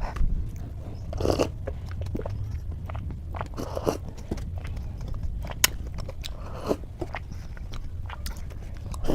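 A person chewing and biting food, with many small wet mouth clicks and a few louder mouthfuls every couple of seconds.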